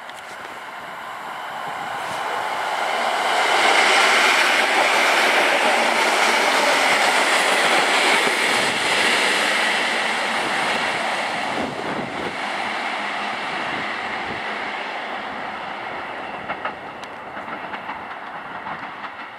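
EN57 electric multiple unit (EN57-1025) running past on the rails. The wheel-on-rail noise rises as it approaches, is loudest for several seconds, then fades as it moves away, with a clickety-clack of wheels over rail joints.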